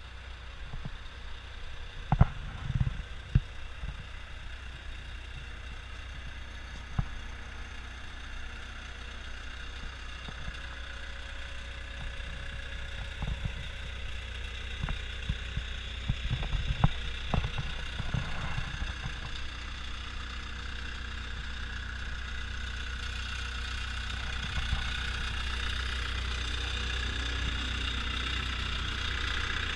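CAT 252B skid steer loader's diesel engine idling steadily, with scattered knocks and clicks over it. The sound grows gradually louder.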